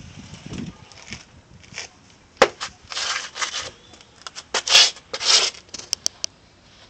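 A shoe scuffing and grinding on brick pavers: a string of short rasping scrapes, the loudest two close together about two-thirds of the way through, with a few sharp clicks among them.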